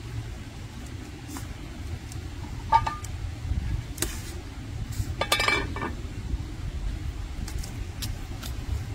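Kitchenware clinking: one sharp ringing clink about three seconds in, then a rattle of several ringing clinks a couple of seconds later, over a steady low rumble.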